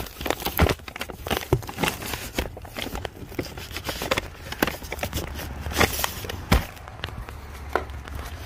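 Cardboard firework cake boxes being handled and shifted: irregular knocks, taps and rustles of cardboard, over a low steady hum.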